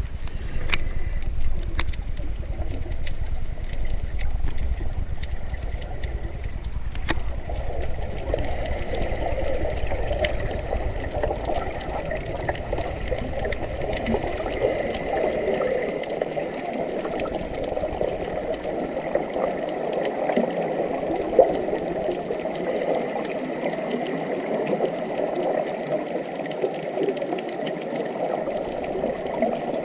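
Running water making a steady rushing, trickling sound. For the first several seconds a low rumble sits under it; this stops after a click about seven seconds in.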